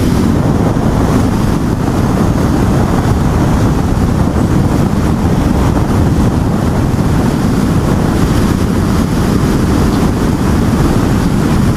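Heavy wind rushing over the camera microphone of an electric sportbike at highway speed, close to 70 mph: a steady, dense, low rumble with no motor tone standing out.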